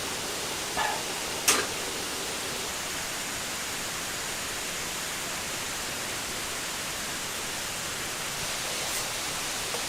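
Rain falling steadily as an even hiss, with two sharp drop-like ticks in the first two seconds and a faint one near the end.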